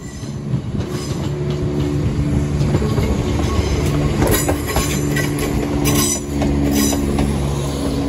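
Class 170 Turbostar diesel multiple unit passing close by, its underfloor diesel engines running with a steady drone that grows louder as it arrives. Its wheels click over the rail joints about once a second from about halfway through.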